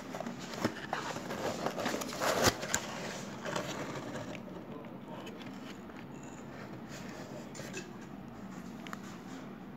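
Cardboard pizza box being handled and its lid opened: a run of scrapes and crackles, loudest about two and a half seconds in, then quieter with a few faint clicks.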